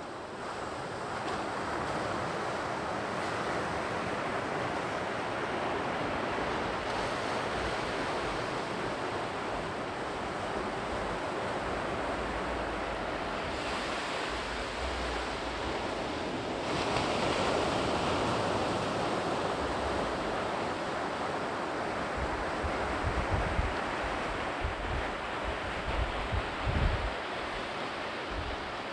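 Sea surf breaking and washing on the shore, a steady rush that swells about two-thirds of the way through. Wind buffets the microphone in low bumps near the end.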